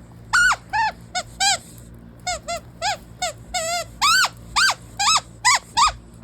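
A plush squeaky toy with several squeakers being chewed by a dog. It gives about fourteen short squeaks in an irregular run, each rising and then falling in pitch.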